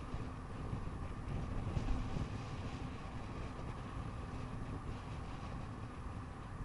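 Wind buffeting the microphone over the low rumble of bicycle tyres on an asphalt road, with a stronger gust about two seconds in.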